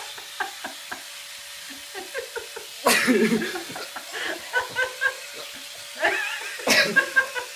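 Laughter in bursts, loudest about three seconds in and again near the end, over the faint steady whirr of an electric epilator running.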